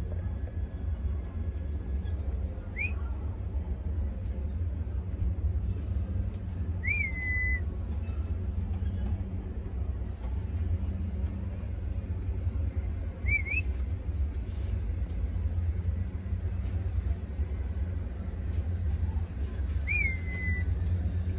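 Cockatiel giving four short whistled calls several seconds apart, each rising sharply and then falling away, over a steady low rumble.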